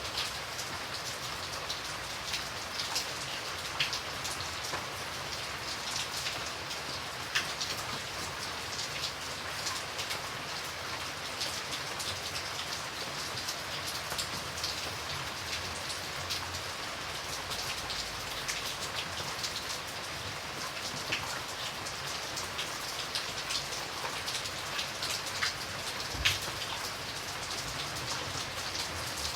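Steady rainfall, a dense even hiss with many individual drops ticking on a hard surface.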